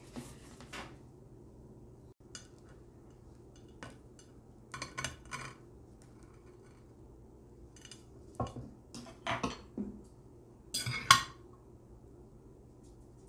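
Dishes being handled: scattered clinks and knocks of a glass baking dish and tableware, in small clusters, the loudest about eleven seconds in.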